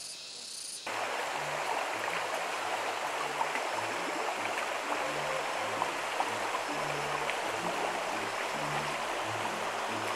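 Running water, such as a stream, rushing steadily; it starts abruptly about a second in.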